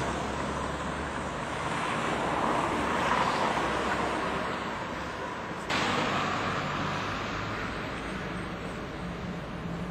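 Outdoor street noise: a steady hiss of traffic, which swells about three seconds in and steps up suddenly about six seconds in.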